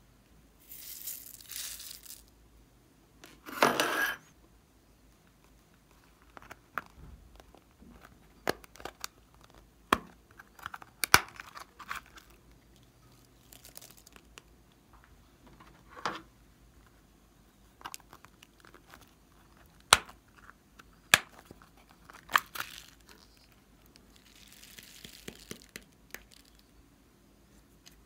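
Small plastic containers clicking and tapping against a glass dish as glitter, tiny beads and foam pieces are shaken out into it, with a few brief rattling pours, the loudest one near the start.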